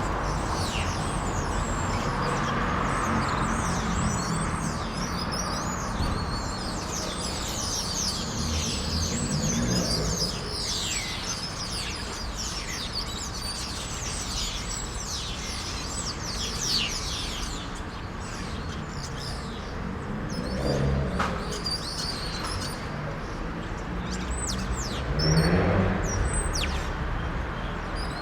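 Many small birds chirping and twittering in quick, overlapping calls, over a steady low rumble that swells briefly a few times.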